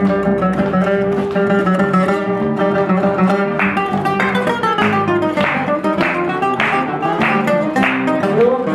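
Acoustic guitars playing an instrumental milonga interlude, plucked melody over bass notes. About halfway through, sharp, bright strummed accents come in, about two a second.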